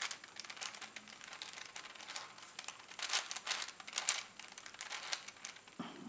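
Plastic layers of a 6x6x6 Rubik's cube being turned by hand: a run of quick clicks and scraping rattles, loudest in a cluster about three to four seconds in.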